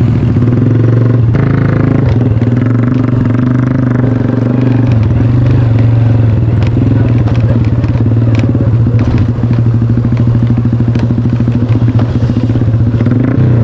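A vehicle engine running steadily and loudly with a fast, even pulse, with occasional knocks and rattles over it.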